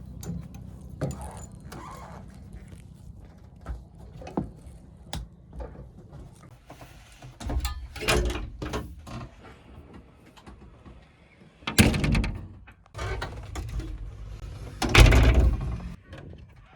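JCB backhoe loader with its Kirloskar diesel engine running while the machine works, with repeated metallic clanks and thuds and several louder bursts of banging.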